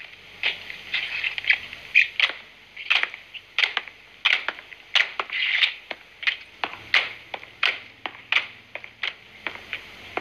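Honour guard performing a rifle drill: a rapid, uneven run of sharp clacks as hands slap the rifles and boots stamp in unison.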